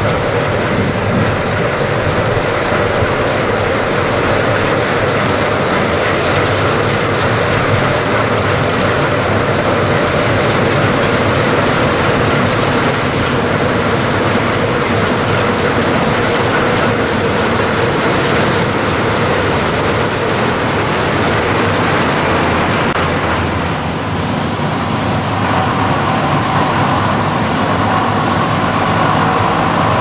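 Steady, unbroken machinery noise of engines running, shifting in character about three-quarters of the way through.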